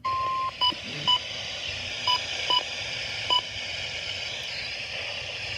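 Weather radio broadcast under a steady hiss of static: a half-second electronic tone at the start, then five short, unevenly spaced beeps.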